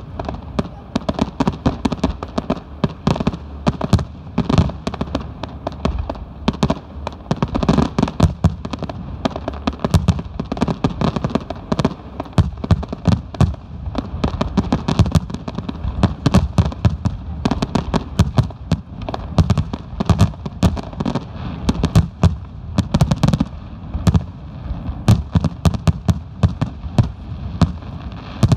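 Aerial firework shells bursting in a rapid, unbroken barrage of booms and sharp cracks, several a second: the closing finale of a fireworks display.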